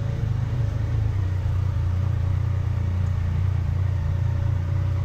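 Steady low rumble of a running motor vehicle, with a faint steady tone above it.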